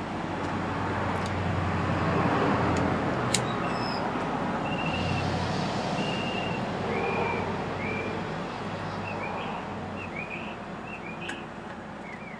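A car passing on the road, its noise swelling and then fading away. Birds chirp with short repeated calls from about halfway through.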